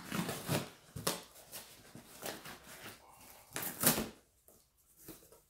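A cardboard shipping box being opened by hand: scattered knocks and rustles of cardboard, with a short, loud rip a little under 4 seconds in.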